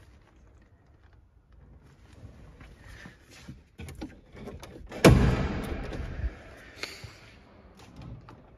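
Faint handling clicks, then a car door, on the Vauxhall Nova GSi, shut hard about five seconds in: one heavy thud that echoes and dies away over about a second in a large, bare room. A lighter knock follows about two seconds later.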